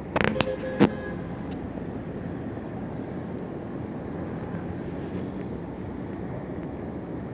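Steady low rumble of wind over the microphone, with a few sharp clicks in the first second.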